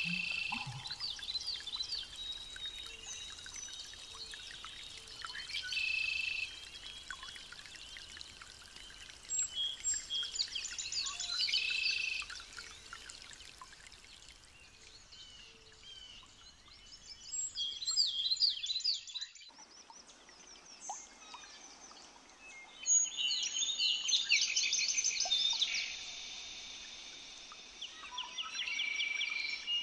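Songbirds singing: bursts of quick trills and whistled phrases every few seconds over a faint steady background hiss.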